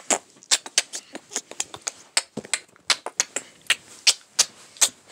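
Irregular run of sharp clicks and taps, about five a second: handling noise from a phone being moved and knocked about among bedding and plush toys.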